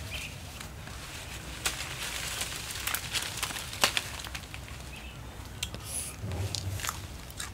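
Mango tree leaves rustling and twigs snapping in a series of sharp, irregular cracks as a cluster of green mangoes is pulled off the branch; the loudest crack comes about halfway through.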